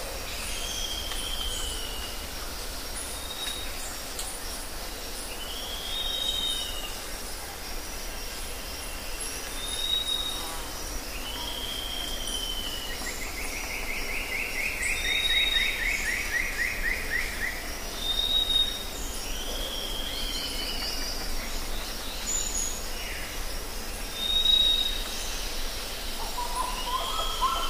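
Birds calling: short downward-slurred whistles repeating every couple of seconds, with one fast trill about halfway through, over a steady high hiss.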